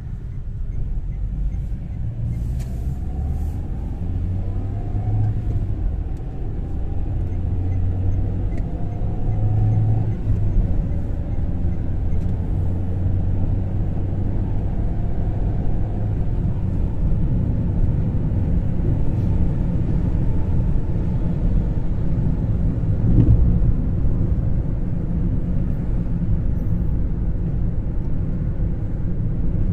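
A car driving along, heard from inside the cabin: a steady low engine and road rumble, with a faint engine note that rises now and then in the first half.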